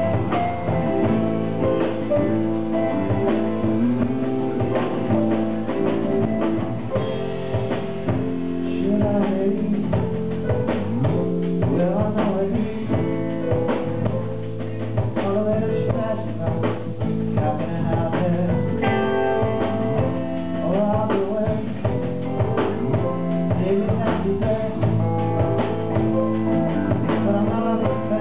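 A live band plays a blues song: electric guitar, piano, bass and drums, with a steady beat.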